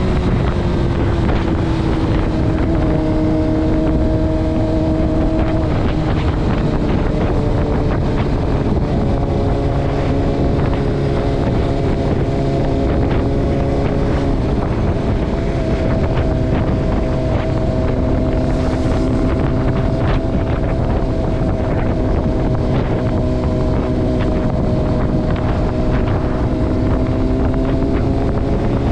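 Honda CBR600RR inline-four engine running at steady revs under way, its pitch shifting a couple of times, with wind buffeting the microphone.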